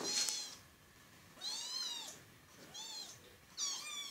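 Very young kittens mewing, about three thin, high calls that each rise and fall in pitch.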